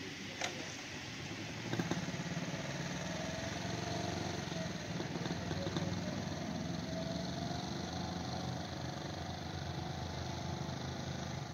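Faint, distant running of a 1961 Honda Super Cub 50's small single-cylinder four-stroke engine on a test ride after its top-end rebuild, its pitch drifting slowly up and down.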